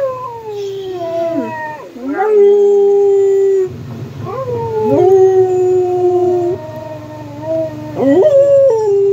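A dog howling: a run of long howls, each sliding down in pitch and then held on a steady note, with short breaks between them.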